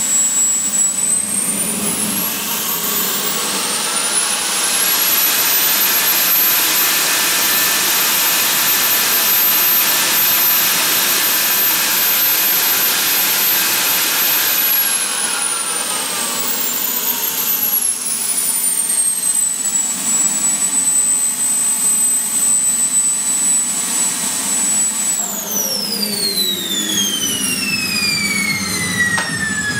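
JetCat P300-RX model turbine engine running with a high whine. It spools up a couple of seconds in and holds a higher whine for about ten seconds, then throttles back to idle. About 25 s in it shuts down, the whine falling steeply in pitch as it winds down.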